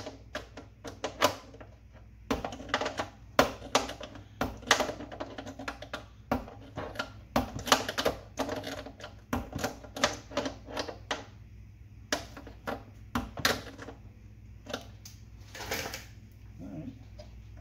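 Irregular sharp metallic clicks and clinks, a few a second, of hand tools and nuts being worked on the contactor and solenoid terminals inside a steel electrical box, over a low steady hum.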